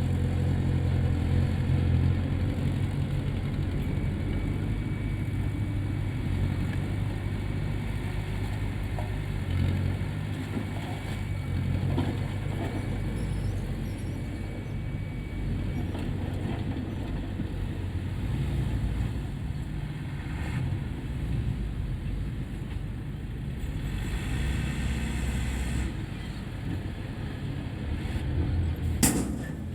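Heavy diesel earthmoving machinery running with a steady low rumble. A hiss lasts about two seconds a little over three-quarters of the way through, and one sharp knock comes near the end.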